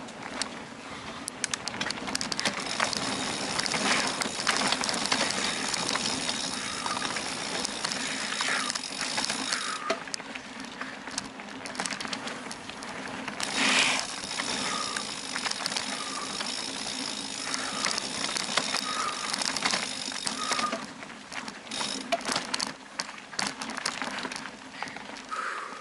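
Bicycle ridden along a dirt forest trail: tyres rolling over earth and stones, with a steady clatter of the bike rattling over bumps.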